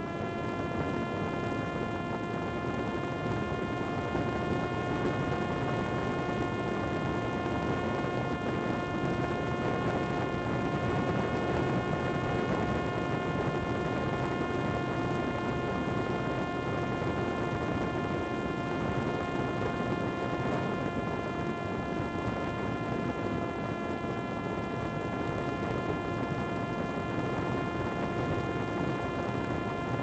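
Parrot Disco fixed-wing drone's electric pusher motor and propeller running at a steady part throttle, giving a constant high whine over a noisy hiss.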